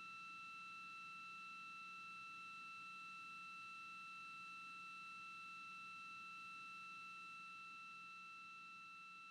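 Faint, steady high-pitched electronic whine over light hiss and a faint low hum on the broadcast audio, easing off slightly near the end.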